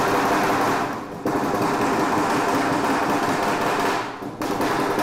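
A fast, even mechanical clatter that runs on steadily, breaking off briefly about a second in and again about four seconds in.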